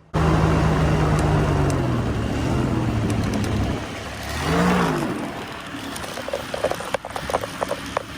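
Paramotor engine running on through the landing: its pitch swells and falls a few times, loudest about four and a half seconds in, then drops to a choppier, lower run. It keeps running because the kill switch has failed to cut it.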